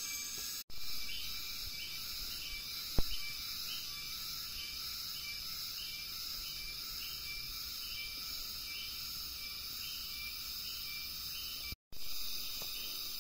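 Forest insect chorus: a steady high-pitched drone with a pulsing call repeating about twice a second. A single sharp knock about three seconds in, and the sound drops out for a moment twice.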